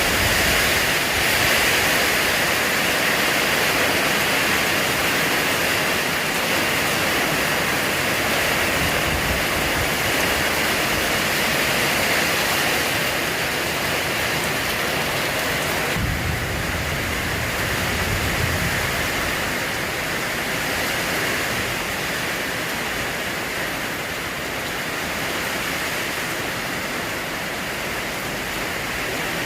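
Steady rain pouring down, a continuous hiss. A brief low rumble comes about halfway through.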